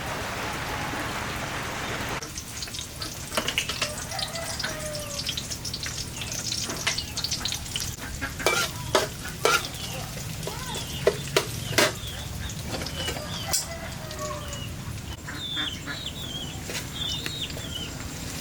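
Steady heavy rain for about two seconds, then cut off abruptly. After that, food frying and being stirred in a pan, with scattered sharp knocks of a utensil against the pan, and chickens clucking in the background.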